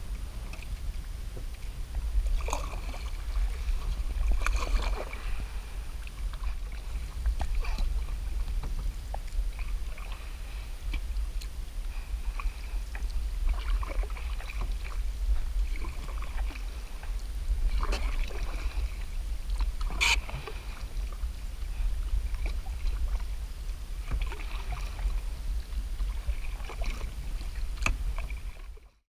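Canoe paddle strokes pulling through the water every few seconds, with splashes and drips, over a steady low rumble. The sound cuts off suddenly near the end.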